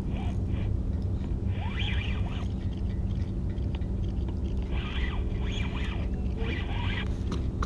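Fishing reel drag buzzing in a series of short bursts, about five times, as a hooked fish pulls line off the reel. Under it runs a steady low rumble.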